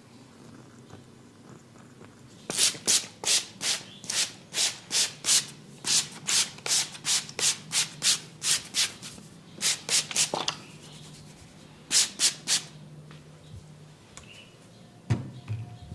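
Hands rubbing briskly during a head massage: about three rubbing strokes a second for some eight seconds, a pause, then a short run of three more. A single knock sounds near the end.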